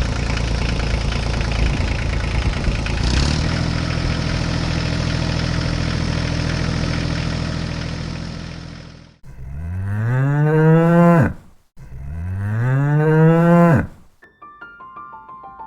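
A steady engine-like running sound for most of the first nine seconds, then a cow mooing twice, each moo a long call that rises and then falls in pitch. The moos are the loudest sounds. Faint music starts near the end.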